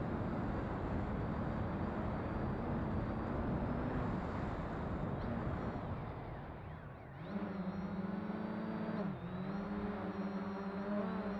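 Electric motors and propellers of a FoxTech H-Wing VTOL flying wing, heard from its onboard camera. For the first six seconds they drone under a rush of wind over the airframe. After a brief dip about seven seconds in, a steady propeller whine with many overtones takes over, wavering slightly in pitch.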